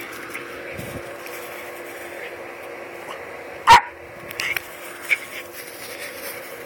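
A Jack Russell terrier barks once, loud and short, a little past halfway, followed by two quieter brief sounds. A faint steady hum runs underneath.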